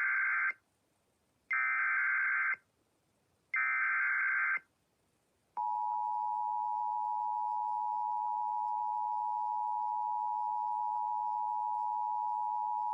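Emergency Alert System SAME header: three short bursts of screeching digital data tones, about a second apart. About five and a half seconds in, the EAS attention signal starts: a steady two-tone beep of 853 and 960 Hz sounding together, held unbroken.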